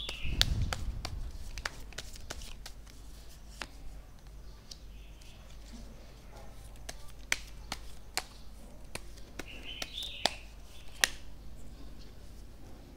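Tarot cards being handled on a cloth-covered surface: a card laid down and the deck picked up. Scattered sharp clicks and snaps of card edges run throughout, with brief rustles of sliding cards and a soft thump just after the start.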